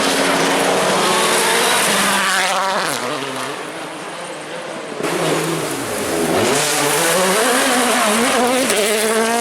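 Rally car engines at high revs on a stage: one car's engine note drops away as it lifts off and passes, then, after an abrupt change about halfway, another car comes through with its revs dipping and climbing again through gear changes.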